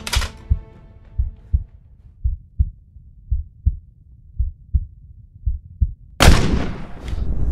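A slow heartbeat sound effect, low double thumps about once a second, under music that fades out within the first two seconds. About six seconds in comes a single loud bolt-action rifle shot with a long decaying tail.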